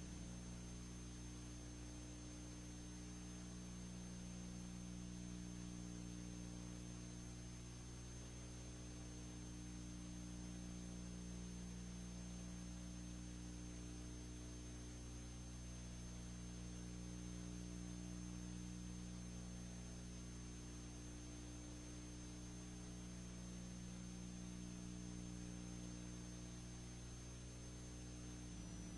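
Steady electrical mains hum with an even hiss and a thin high whine: the empty soundtrack of a transferred 1927 silent film.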